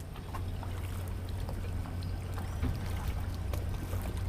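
Motorboat engine running with a steady low drone while water splashes and trickles against the hull.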